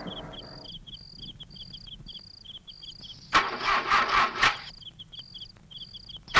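A vehicle engine is cranked by its starter for about a second, a quick pulsing churn, and stops without catching. Crickets chirp steadily in a regular pattern throughout.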